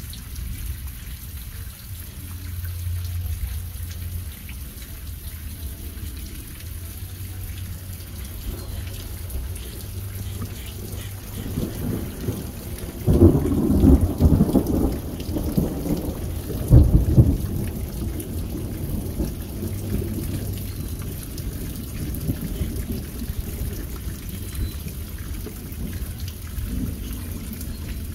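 Steady rain falling, with thunder rumbling deeply for several seconds about halfway through.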